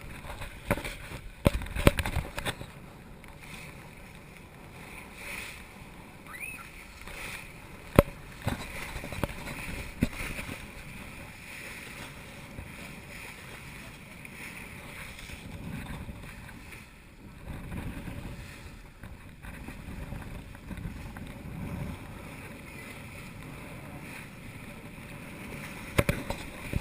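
Water washing along a sailboat's hull as it moves, with a few sharp knocks: a cluster in the first couple of seconds, one about eight seconds in, and more near the end.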